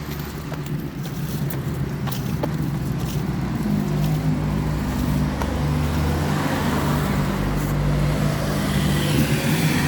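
A road vehicle's engine running close by, getting louder over the first few seconds and then holding a steady low hum before fading near the end, over general street traffic noise.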